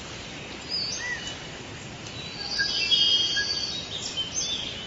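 Birds calling: short whistled chirps and rising-and-falling notes, with a louder, denser run of chirping about three seconds in, over a steady background hiss.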